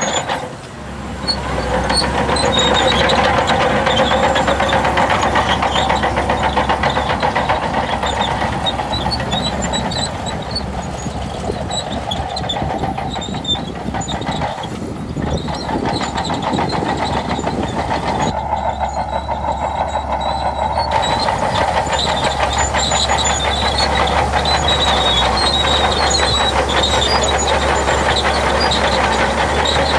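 Shantui DH17C2 bulldozer's diesel engine running steadily, with a short dip in level about a second in.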